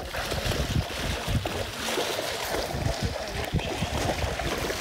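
Water lapping and trickling around a kayak on a calm river, with wind rumbling unevenly on the microphone.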